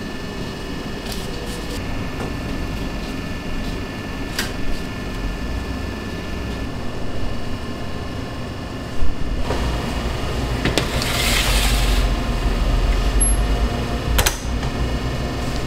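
Steady hum of bakery machinery under light clinks and taps of a metal baking tray being handled. About two-thirds of the way in there is a longer rushing scrape and then a sharp clack as trays of pretzel dough go into a rack cabinet.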